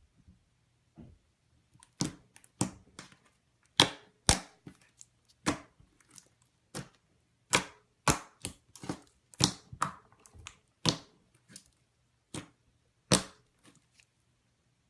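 Slime being handled, giving a string of irregular sharp pops and clicks that stops shortly before the end.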